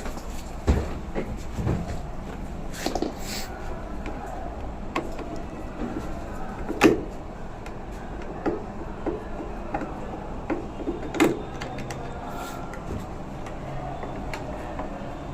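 Scattered knocks and clicks of hard parts and tools being handled, the loudest about one second in, near the middle and about three quarters of the way through, over a steady low background hum.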